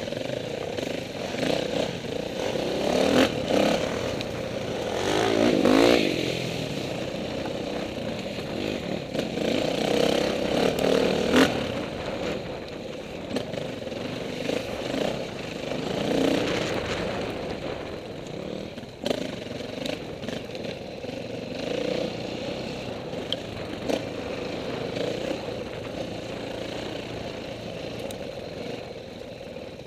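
KTM 450 dirt bike's single-cylinder four-stroke engine being ridden on rough trail, revs rising and falling, with scattered clattering knocks from the bike.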